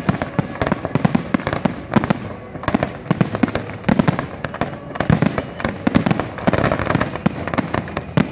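Aerial firework shells bursting in quick, irregular succession: a dense run of bangs and crackling from a fireworks display.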